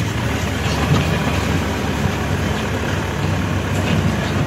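Manitou backhoe loader's diesel engine running steadily as the machine drives forward and works its front loader bucket into loose dirt.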